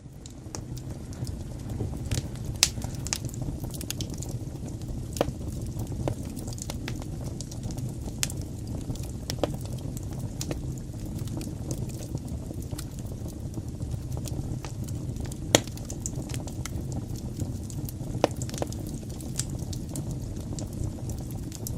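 Wood fire burning in a fireplace: a steady low rumble of flames with sharp crackles and pops scattered throughout, two of them louder, near the start and about two-thirds of the way in.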